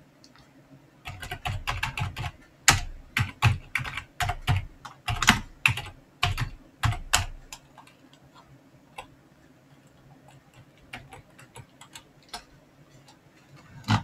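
Typing on a computer keyboard: a quick run of key clicks for several seconds, then only scattered single keystrokes near the end.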